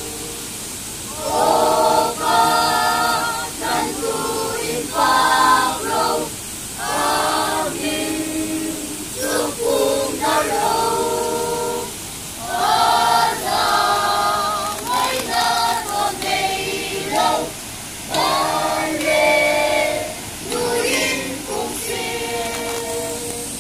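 A group of children and adults singing together as a choir, unaccompanied, in sung phrases of one to three seconds with short breaks between them.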